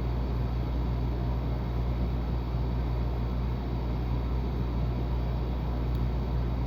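A steady low hum of background noise with no distinct events.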